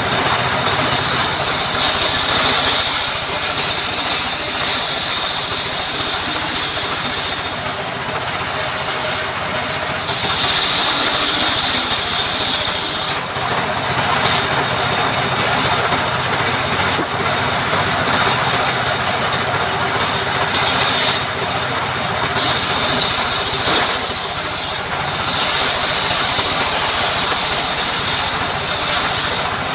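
A saw cutting timber for a chicken-coop frame: a steady, loud mechanical noise, with a harsher hiss rising for a few seconds at a time, several times over.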